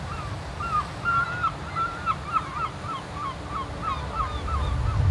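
A gull calling, a run of a dozen or so short, sharp notes that quicken after the first few, over a low, steady rumble of surf.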